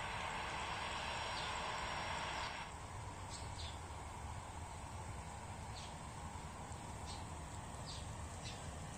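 Distant airliner jet engines as a steady hiss over a low rumble. The hiss drops away abruptly about two and a half seconds in, leaving the rumble with short high chirps every second or so.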